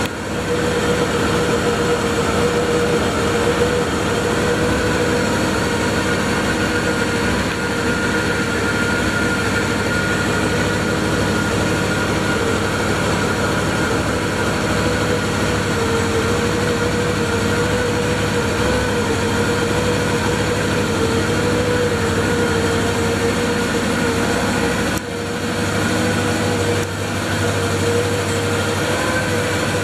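Can-Am Outlander 1000 ATV's V-twin engine idling steadily, with a steady whine over the low rumble.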